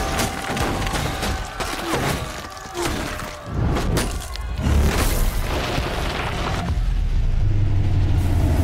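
Film earthquake sound effects: a deep rumble with repeated crashes of falling debris, the crashes thickest in the first half, then a heavier, steadier rumble near the end, mixed with a music score.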